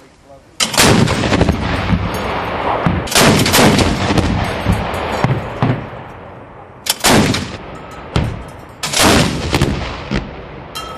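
Towed anti-aircraft autocannon firing several short bursts of rapid shots, each burst followed by a long rolling echo.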